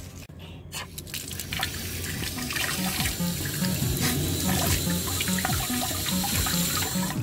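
Water running in a steady stream from an outdoor drinking tap, starting about a second in, over background music with short repeated notes.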